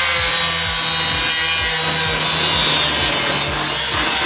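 Angle grinder with a cutting disc cutting through the sheet-steel radiator support of a car, running steadily under load with an even, harsh cutting noise.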